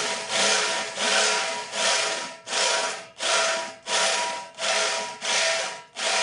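DeWalt DW508S 800-watt hammer drill running with a 10 mm bit boring into thin steel. Its steady motor whine sits under a loud grinding noise that swells and fades in even pulses, about three every two seconds.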